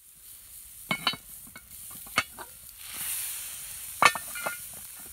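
Cast-iron Dutch oven and lid clanking as they are handled: about six sharp metallic knocks with a short ring, the loudest about four seconds in. Under them is a hiss from the hot oven over the campfire, which swells about three seconds in.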